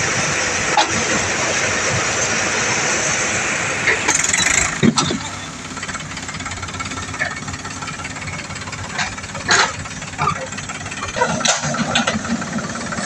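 Diesel engines of a Powertrac Euro 50 tractor and a JCB backhoe loader working hard in deep mud. The noise is loud and dense at first, then drops suddenly about five seconds in to a lower, steadier engine sound with scattered knocks and clanks.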